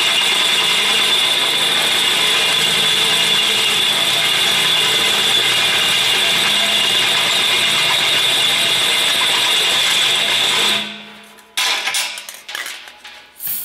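Large twist drill bit boring through a steel mounting plate: a loud, steady, high-pitched screech of the bit cutting metal that stops about eleven seconds in, followed by a few short scraping knocks.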